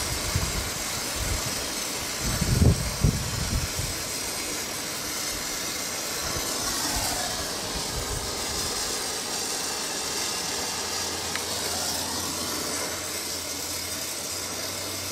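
Gas torch flame hissing steadily while heating metal, with a few low thuds about three seconds in.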